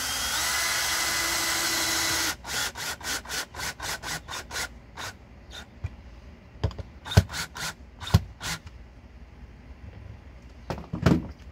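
DeWalt cordless drill driving a screw through a metal electrical box into the wall, running steadily and stopping suddenly about two seconds in. It is followed by a run of short sharp clicks, about two a second, then a few knocks and two more clicks near the end.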